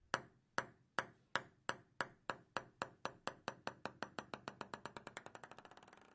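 A run of sharp pings that speed up and fade, about two a second at first and quickening to a rapid patter before they stop, like a small ball bouncing to rest.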